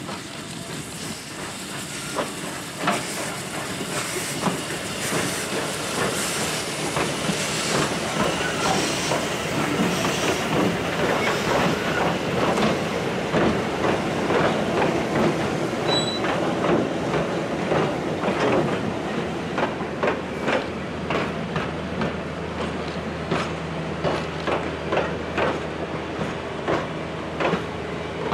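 Victorian Railways J class steam locomotive running slowly past with steam hissing. It is followed by a long train of wooden heritage carriages whose wheels click steadily over the rail joints as they roll by.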